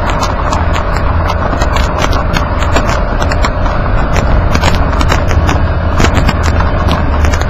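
Underbody road noise of a Nissan Kix driving on a dirt track: a heavy, steady rumble and tyre noise, with frequent sharp clicks of grit and small stones kicked up against the underside.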